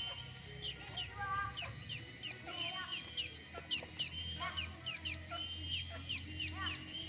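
A flock of captive birds chirping and calling: many short, quick chirps overlapping without a break, with a few lower calls among them, over a steady low hum.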